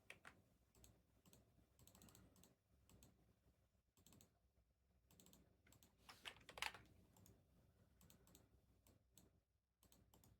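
Near silence with faint scattered clicks and light rustling, and a short, slightly louder patch of rustling about six seconds in.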